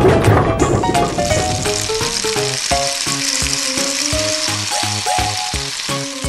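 Dense, continuous rattling hiss of hundreds of small balls clattering and scattering, with plucked banjo background music.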